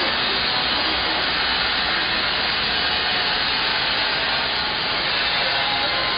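CNC plasma cutting torch cutting metal: a steady, loud hiss of the air-plasma arc that holds even throughout.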